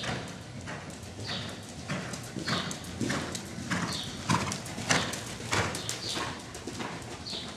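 Hoofbeats of a chestnut Hanoverian mare cantering under a rider on soft arena footing: a string of dull, uneven strikes, loudest around the middle.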